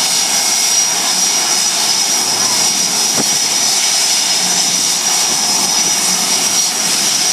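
F/A-18 Hornet jet engines running on the ground, a steady loud rushing noise with a constant high-pitched turbine whine.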